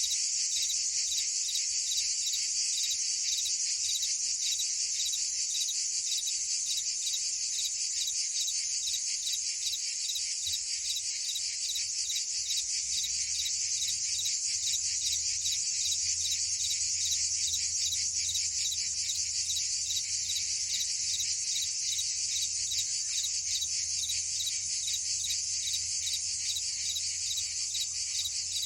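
Dense, unbroken chorus of crickets and cicadas: a steady, high-pitched shrill trilling made of very rapid pulses.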